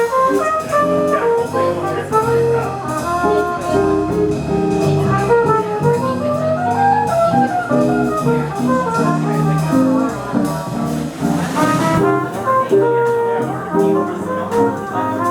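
Jazz quartet playing, with a horn carrying the melody over the rhythm section.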